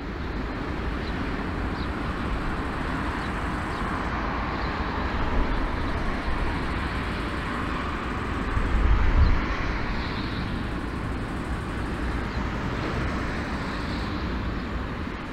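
Airbus A340-300 taxiing, its four CFM56 jet engines running at low power: a steady rumble and hiss that swells briefly about nine seconds in.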